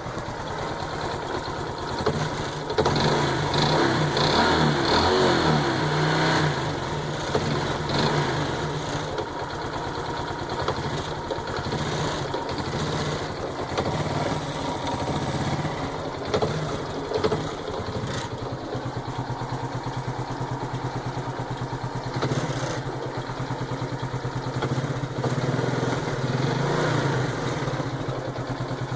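Honda Biz 125's single-cylinder four-stroke engine running with a mechanical noise, revved a little a few seconds in and again near the end. The engine is fresh from a rebuild, and a mechanic takes the noise for piston slap (the piston skirt knocking), which the owner doubts.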